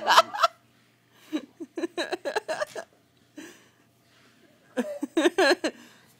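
A child laughing and giggling in several short pulsing bursts, with no clear words.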